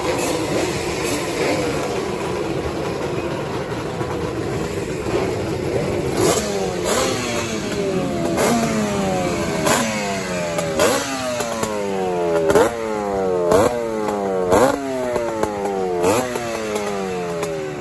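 Several vintage two-stroke motorcycle engines running at once, with one throttle blipped over and over from about six seconds in. Each rev jumps up sharply and falls away, roughly once a second, and the blips grow louder toward the end.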